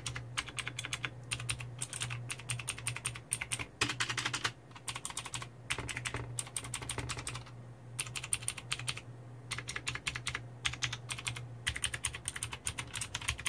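Inplay NK970 mechanical keyboard with blue clicky switches, keys pressed in quick runs of clicks and clacks, broken by short pauses, as a sound test.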